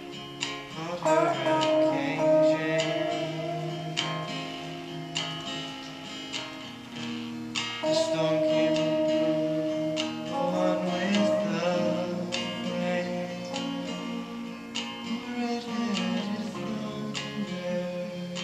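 Electric guitar and acoustic guitar playing together in an instrumental passage of a song, the electric guitar holding long sustained notes over the acoustic.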